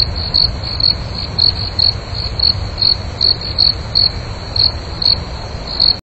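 Crickets chirping: a steady high trill with louder chirps about twice a second, over the steady rush of a valley stream.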